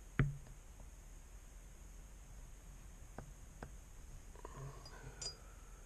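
Quiet room tone broken by one sharp tap about a quarter of a second in and two fainter clicks a little after three seconds, as small water-pump parts are handled on a wooden workbench.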